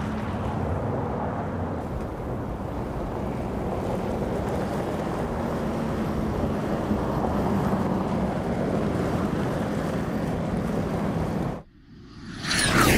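Audi SQ7's V8 diesel running steadily on a dirt road, a low steady drone under a rushing hiss of tyre and wind noise. Near the end the sound cuts off abruptly, and a loud sweeping whoosh effect with gliding pitch rises in.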